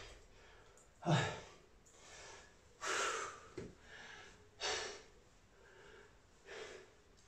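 A man breathing hard, catching his breath after a burst of exercise: a run of short, noisy breaths in and out about every second or two.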